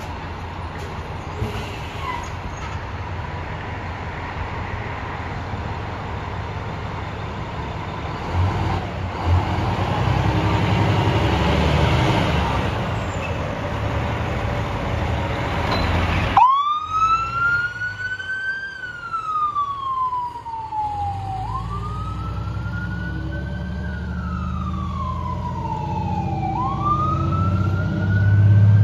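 Fire engine on a code 3 response: its diesel engine runs under a steady rushing noise. After an abrupt cut about halfway through, its siren wails, rising and falling in slow sweeps over the engine's low rumble.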